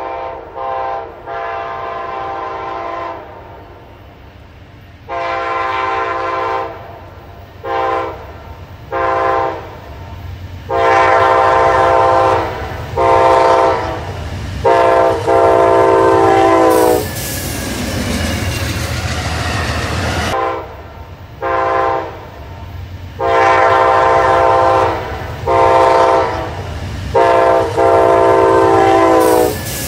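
Amtrak Auto Train's GE P42DC Genesis locomotives sounding their horn for grade crossings in a run of long and short blasts. The horn's pitch drops at the end of the last blast of the first run, as the locomotive passes. A stretch of train rumble follows, then a second run of horn blasts.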